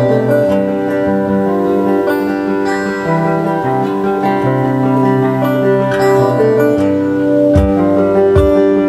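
Acoustic guitar played solo with no singing, picked notes ringing and changing. A few low kick-drum thumps come in near the end.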